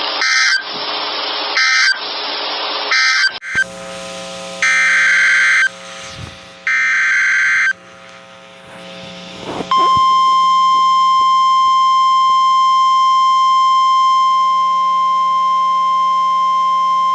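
Emergency Alert System broadcast of weather radio: a run of short, harsh electronic screeching data bursts about a second apart (the coded end-of-message and header signals between warnings), then about ten seconds in the single steady alarm tone of a National Weather Service warning, held for about seven seconds.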